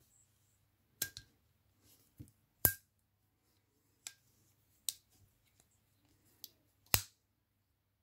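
Rolgno multitool's metal implements clicking shut into the handles as the tool is folded closed. There is a series of about nine sharp clicks, some with a brief metallic ring. The loudest come about two and a half seconds in and near the end.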